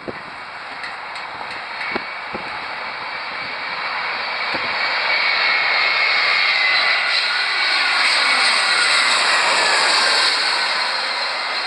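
Twin-engine jet airliner on final approach passing low overhead: the engine noise builds steadily, peaks as it crosses over, and begins to fade near the end. A high engine whine falls in pitch as it passes.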